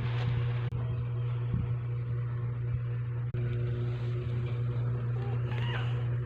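A steady low mechanical hum with a noisy haze, cut off for an instant twice.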